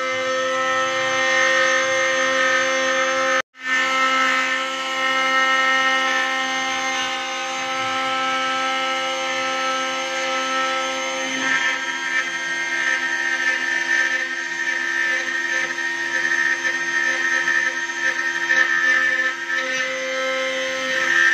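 Trim router spindle on a LEAD CNC 1010 running at high speed and carving into a wooden sign board: a steady high whine over the noise of the bit cutting wood. The sound drops out for an instant about three and a half seconds in.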